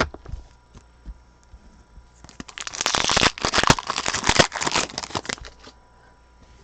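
Foil trading-card pack being torn open and crinkled: a dense crackling rustle starting about two seconds in and stopping after about three and a half seconds, with a few light clicks of card handling before it.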